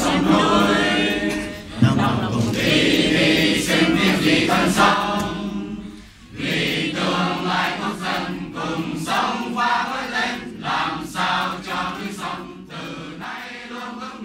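A crowd of people singing together without accompaniment, with a brief break about six seconds in.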